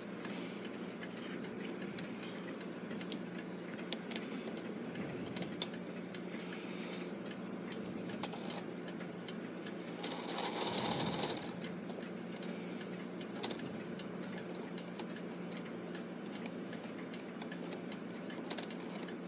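Brass strike train of a Gilbert clock movement being run by hand to test the strike timing after a wheel was remeshed one tooth: scattered light metallic clicks and clinks of the gears and levers, with a louder rush of noise lasting about a second and a half near the middle.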